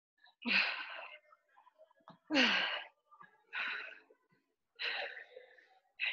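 A person's forceful, breathy exhalations, five in all, one with each jump of a banded jumping exercise, about every one and a half seconds.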